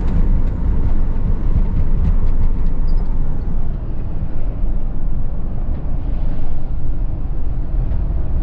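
Van being driven, heard from inside the cab: a steady low rumble of engine and road noise.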